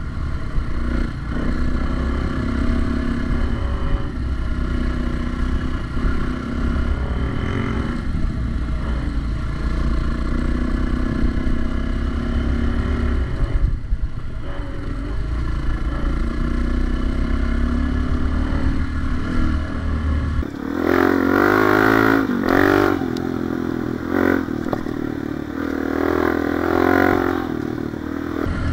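Four-stroke single-cylinder dirt bike engine running on a trail, its pitch rising and falling as the throttle is opened and closed. About two-thirds of the way through the sound changes: the low rumble drops away and the engine revs higher in bursts.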